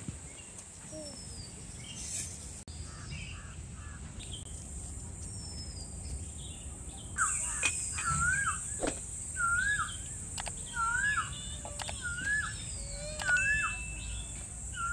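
Birds calling outdoors: faint scattered chirps, then from about halfway through one bird repeats a short clear up-and-down call about once a second. A steady high-pitched hiss runs underneath and grows louder at the same point, with a few light clicks.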